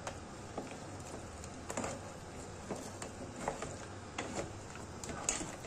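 Bavette in blue crab sauce simmering in the pan as the last of the added water cooks off, with a few faint scattered clicks.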